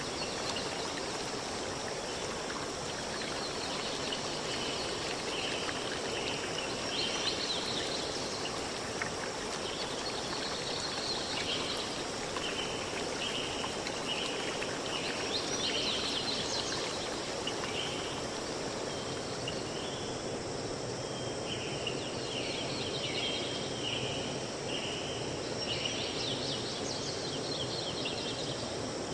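Outdoor natural ambience: a steady hiss underneath a series of short, repeated high-pitched animal calls, with a few bursts of rapid chirping about a quarter, half and nine-tenths of the way through.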